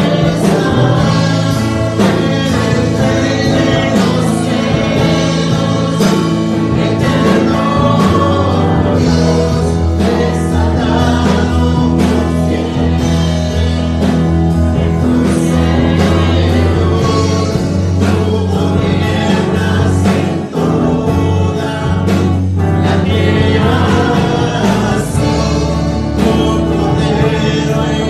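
A man and a young woman singing a worship song into microphones over an instrumental accompaniment with steady bass notes.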